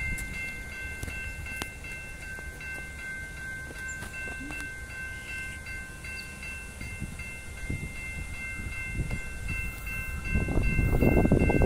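Level crossing warning bells ringing steadily as three high tones. About ten seconds in, the rumble of the approaching Overland passenger train swells and grows louder.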